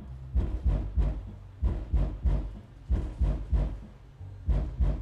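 Bass-heavy music: a repeating beat of deep, punchy low hits, roughly three a second.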